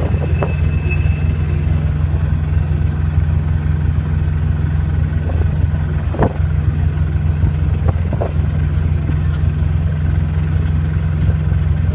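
Quad bike's engine running at a steady, unchanging pace while riding along, with a deep, even drone.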